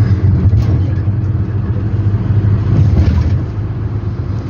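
Minibus engine and road noise heard from inside the cabin while driving: a steady low rumble.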